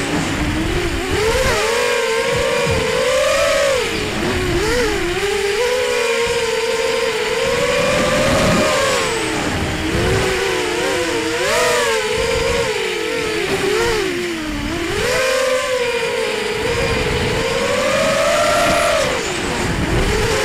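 Whine of a ZMR250 racing quadcopter's T-Motor 1806 2300kv brushless motors spinning HQ 5x4.5 props, heard from the onboard camera. The motors sound as several close tones whose pitch rises and falls constantly with the throttle, dropping off and climbing back up several times.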